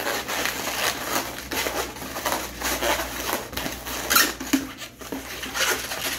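Inflated latex modelling balloon being twisted and folded by hand, the rubber squeaking and rubbing in a run of irregular squeaks, with a couple of louder squeaks about four and five and a half seconds in.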